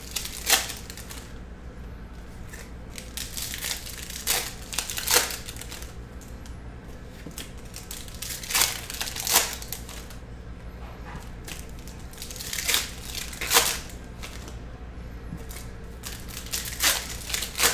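Foil trading-card pack wrappers crinkling as they are torn open and handled, in short pairs of sharp crinkles about every four seconds.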